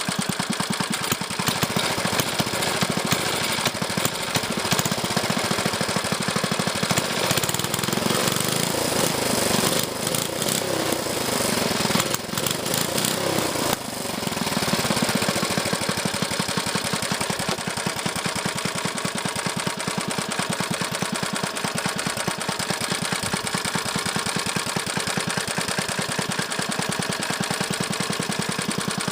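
Small air-cooled 1970s plastic-tank Clinton engine running, with rapid even firing pulses. Its speed shifts and dips in the middle, then it settles back to a steady run.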